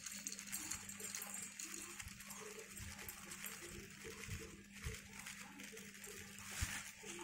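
Dried melon seeds poured from a plastic bag into a steel mixer-grinder jar: a faint patter of seeds on the steel and on each other, with a few soft knocks, over a low steady hum.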